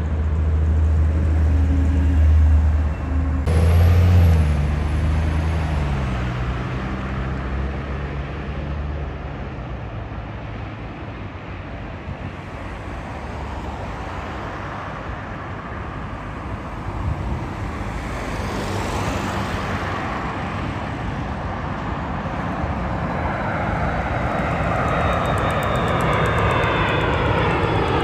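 Jet engines of airliners landing. A low rumble from a Boeing 777 freighter passing on final approach is loud in the first few seconds and fades, and near the end another twin-engine jet grows louder as it comes in overhead, its engine whine sliding down in pitch.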